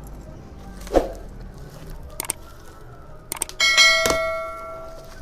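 A metal tube of a motorcycle paddock stand is struck and rings out with a bell-like tone that fades over about a second and a half. Before it there is a dull knock about a second in and a few light clicks as the parts are handled and unwrapped.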